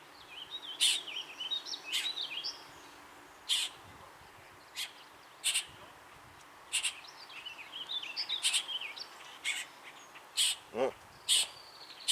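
Birds calling: short, sharp chip notes repeated at irregular intervals of about a second, with two stretches of quick, twittering warbling song between them.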